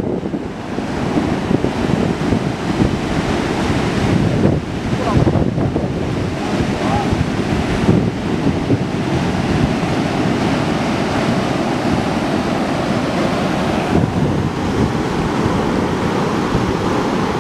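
Pacific Ocean surf breaking offshore and washing up a flat sandy beach in a steady, loud rush, with wind buffeting the microphone.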